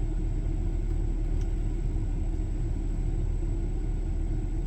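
A van's engine running steadily at idle, a low even rumble with no revving.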